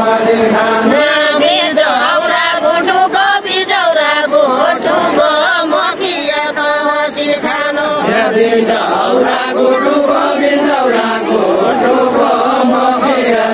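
A group of voices singing a Nepali Deuda folk song together, a chanted line carried in chorus, with several voices overlapping and wavering in pitch.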